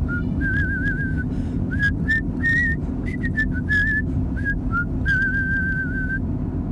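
A person whistling a tune inside a moving car, short notes and longer held ones with a wavering vibrato, over the steady low rumble of the car's engine and road noise.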